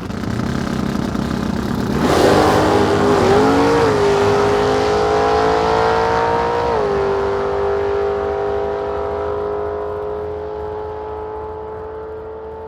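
Car engine running, then revving hard about two seconds in, climbing and holding at high revs before gradually fading away.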